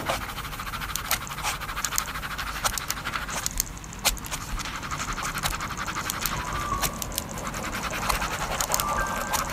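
A person panting heavily with quick, breathy breaths, over many sharp clicks. A short steady tone sounds twice in the second half.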